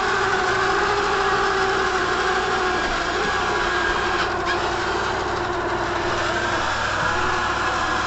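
Pure Clean robot vacuum cleaner running as it drives itself across the floor: a steady motor hum and whine.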